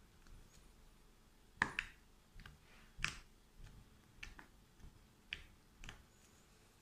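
Soft green slime being pressed and squeezed by fingers on a tabletop, giving short sharp pops and clicks as trapped air bursts. About ten come scattered and irregular from about a second and a half in, the loudest two near the start.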